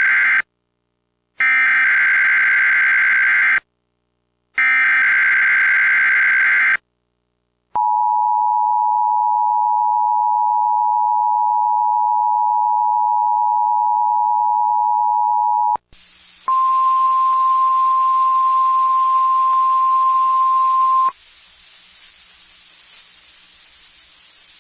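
Emergency Alert System Required Weekly Test signal. It opens with the end of one SAME digital header burst and two more, harsh warbling data bursts about two seconds long. Then the EAS two-tone attention signal holds steady for about eight seconds, and after a short break the NOAA Weather Radio single-tone warning alarm sounds over radio hiss for about four and a half seconds before dropping to faint static.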